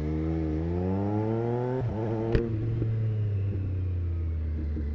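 Triumph Street Triple 765 RS inline-three engine with a Racefit Growler full exhaust, accelerating away from a stop: its pitch rises for about two seconds, breaks at a gear change with a sharp click, then holds steadier at a lower pitch.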